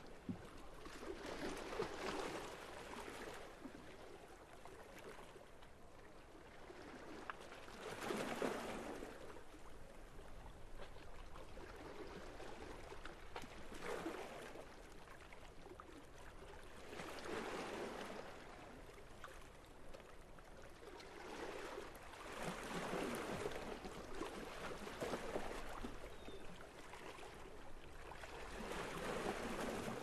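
Small sea waves lapping and splashing against the waterfront, each wash swelling and fading every few seconds.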